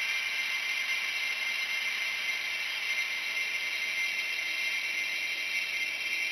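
Experimental noise recording: a dense, steady hiss, brightest in the upper-middle range, with no beat, melody or separate events.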